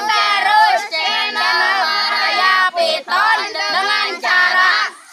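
A group of children singing together in short phrases, with one long held note about a second in.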